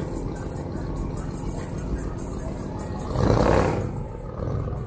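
Street traffic rumbling steadily, with one vehicle's engine surging loudly as it passes for about a second, a little past the middle.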